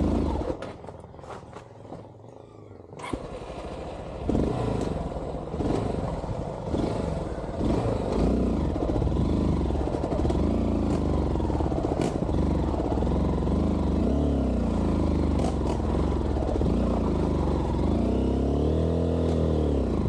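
Honda XR190 motorcycle's single-cylinder engine running, its revs rising and falling again and again. It is softer for the first few seconds and louder from about four seconds in, with one long rev up and back down near the end.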